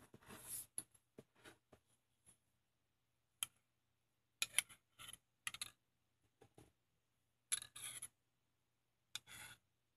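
Tableware being handled: a bowl and spoon clicking and scraping over a glass, in short clusters of sharp clicks and brief scrapes with quiet gaps between them.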